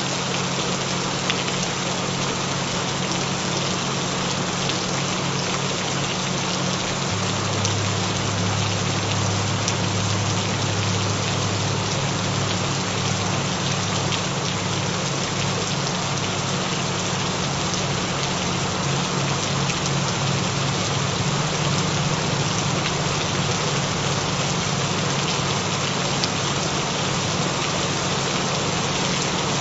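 Gentle rain falling steadily, with low steady tones droning beneath it: the video's added frequency tones. A lower tone strengthens about seven seconds in, and the tones pulse for stretches.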